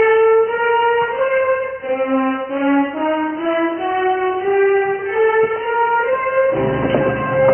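Orchestral TV score music: a slow melody of held notes on strings and brass that steps upward, with the fuller orchestra joining in about six and a half seconds in.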